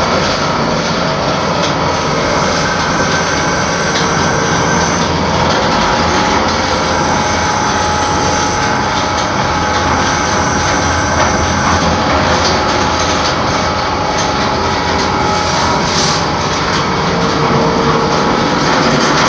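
Camber straightening machine running steadily, its motor-driven rollers drawing a thin metal strip through: a continuous mechanical whir with a faint whine.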